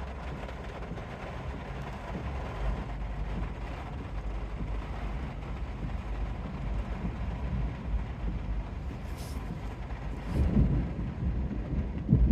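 Heavy rainstorm: a steady rush of rain with a low rumble underneath, swelling louder twice near the end.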